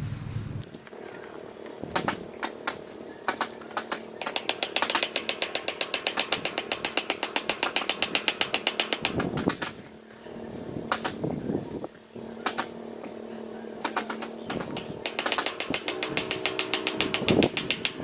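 Power impact driver hammering in rapid, even bursts of about eight blows a second as it drives fasteners into 2x4 lumber, with short spurts between two longer runs.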